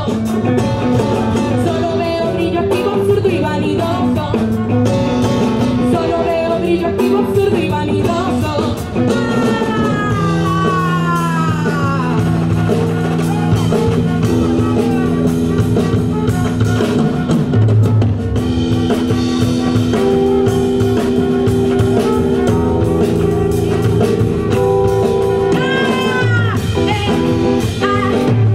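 Live band music with singing: long held notes, with a gliding, falling melody line about ten seconds in and again near the end.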